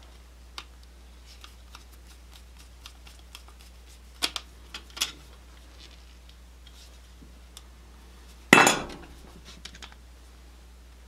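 Small metallic clicks and scrapes of a screwdriver and bare copper ground wire working at the green ground screw of an electrical receptacle, with a louder sharp clack about eight and a half seconds in.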